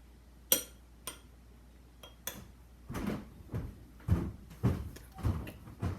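Two sharp clicks, then a run of irregular dull knocks and thumps, like things being handled or a cupboard or door being moved.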